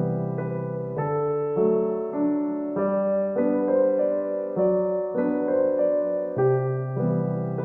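Background piano music: soft keyboard notes and chords changing about every half second to second.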